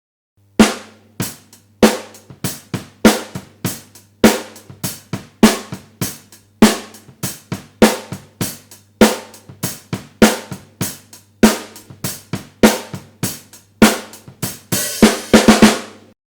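SCD 14 x 5 inch maple snare drum played in a steady drum-kit groove with bass drum and hi-hat, the strongest hits coming about every 1.2 seconds. A quick fill of closely spaced strokes comes near the end.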